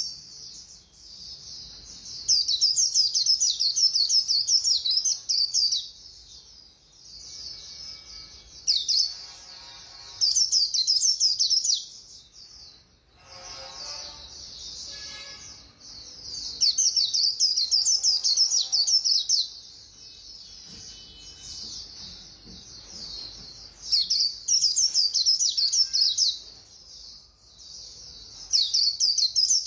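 White-eye (khuyên) singing its fast, high twittering 'líu' song in repeated bursts of two to four seconds, with softer, lower chirping in the gaps between them.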